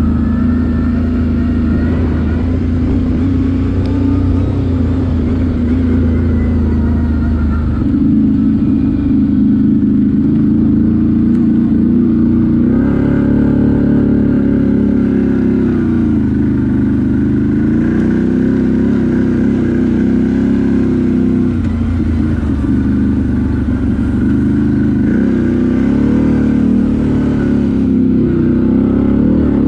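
CFMOTO 520 ATV's single-cylinder engine running steadily while riding. The engine note rises and falls with the throttle: it steps up in pitch about eight seconds in and again about thirteen seconds in, then dips and picks up again twice.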